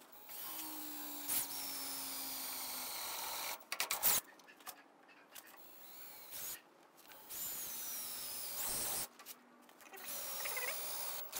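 Cordless drill with a 5/16-inch bit drilling mounting holes through a tractor's sheet-metal firewall. It runs in bursts: one steady run of about three seconds, then shorter runs with pauses between.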